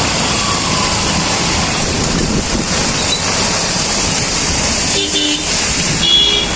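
Steady rush of rain, running floodwater and traffic on a flooded road, with two short vehicle horn toots about five and six seconds in.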